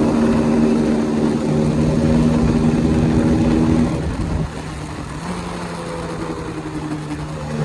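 KTM single-cylinder motorcycle engine running at a steady held speed. The note drops about four seconds in and settles at a quieter, steady level.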